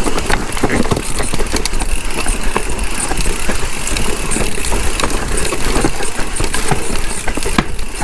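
Wind rushing over the microphone and a mountain bike rattling down rough, rocky trail at speed, with many sharp clicks and knocks from the bike over the bumps.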